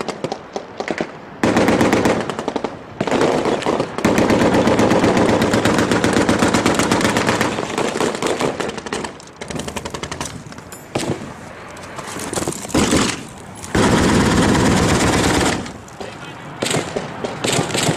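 Automatic gunfire in long, rapid bursts, with scattered single shots in the gaps between bursts.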